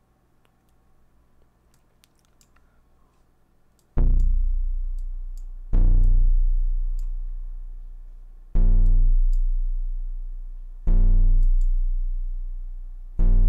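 Very low synthesized plucked-string notes from a home-made string-simulation program, voiced from a drawn square-wave string shape and played five times, about two seconds apart. Each note starts sharply and rings down, its higher overtones fading faster than the deep bass. Faint mouse clicks in the first few seconds.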